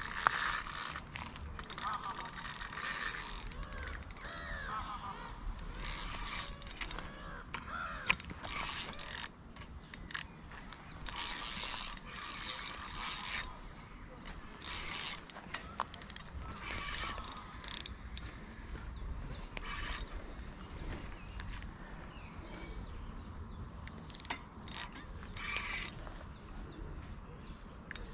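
Spinning reel being cranked in short spurts of a second or two, its gears whirring and clicking as line is wound in, with pauses between turns.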